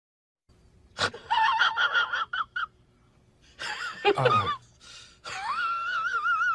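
A comic sound effect of high, squeaky voice-like cries in three bursts, starting about half a second in; the last is a long warbling tone that wavers up and down.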